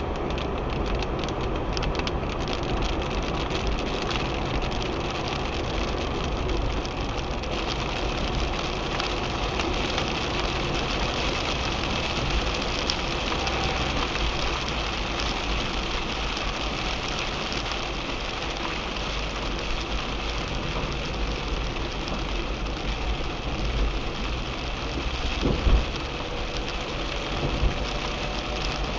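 Rain falling steadily on a car's roof and windscreen, heard from inside the cabin, over the low rumble of the car being driven. One short knock near the end.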